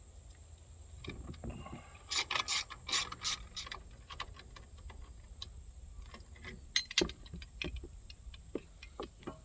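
Hand tools and metal parts clicking and clattering while the pull-rope recoil starter on a small 79cc engine is being worked on, with a quick run of ratchet-like clicks about two to four seconds in and sparser single clicks after.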